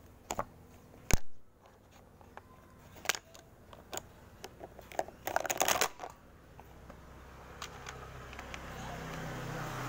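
Hard plastic toy pieces clicking and clattering as a small child handles them, in scattered taps with a sharp knock about a second in and a quick flurry around five to six seconds in. A faint low hum builds near the end.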